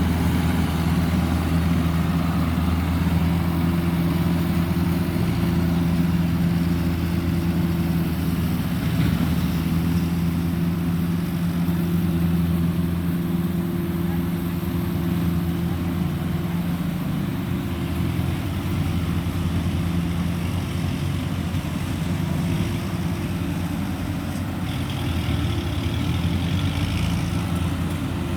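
Rice combine harvester running steadily, its engine holding an even, unbroken drone.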